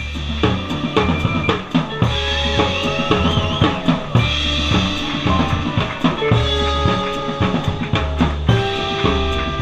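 Jazz drum kit played hard with snare and bass drum hits and cymbals, as the rest of the band comes in right at the start with a low bass line and long held notes over the drums.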